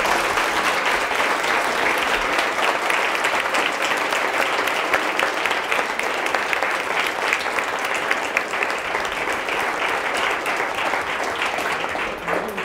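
Audience applauding, a steady round of many hands clapping that thins out near the end.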